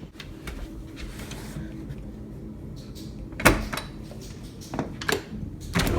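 Clicks and knocks of a door being opened to go outside, the loudest knock about three and a half seconds in and a few lighter clicks near the end.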